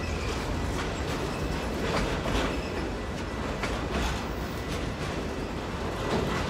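Freight train of autorack cars passing: a steady rumble of steel wheels on the rails, broken by repeated clicks as the wheels roll past.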